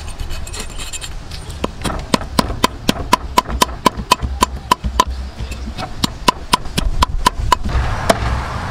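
Meat cleaver scraping the scales off a whole red snapper on a wooden chopping board, each stroke ending in a sharp, slightly ringing tick. The strokes come at about four a second, starting about two seconds in, with a short pause midway, and stop near the end.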